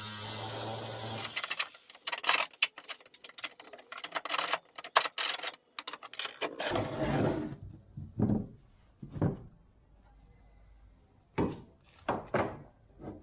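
Angle grinder running on the fibreglass deck, stopping about a second and a half in. Then a hand tool scrapes and clicks rapidly along the cut fibreglass edge, followed by a few separate knocks of tools being set down on the deck.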